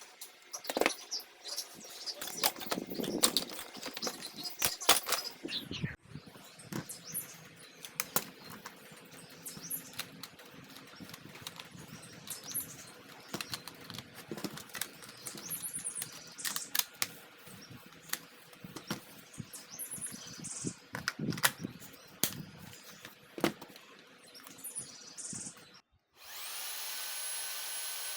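Plastic parts of a vacuum power nozzle clicking, knocking and squeaking as they are handled and fitted together. About two seconds before the end an electric motor switches on, its whine rising quickly and then running steadily.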